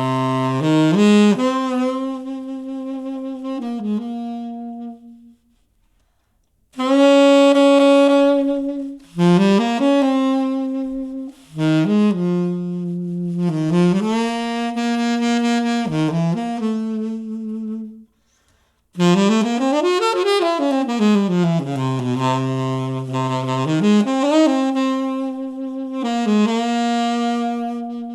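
Solo saxophone melody in jazz style played back through a studio monitor speaker: held notes and sliding phrases, broken by two short silences about five seconds in and about eighteen seconds in.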